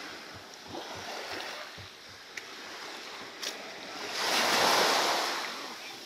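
Surf on the beach, with one wave breaking and washing up about four seconds in, the loudest sound; a couple of light clicks before it.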